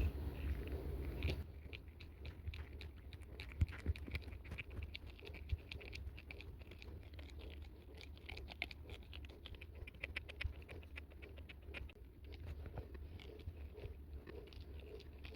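Plastic pen tube being twisted back and forth over a fuel injector's Teflon seal: a quick run of faint scratchy, crunchy rubbing ticks as friction heat shrinks the seal down to size.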